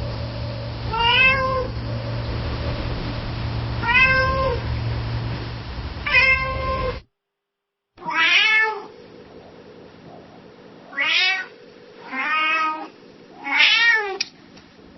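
Domestic cat meowing, seven separate meows, each rising then falling in pitch. The first three play over a steady low hum. After a second of silence about seven seconds in, a second recording brings four more meows.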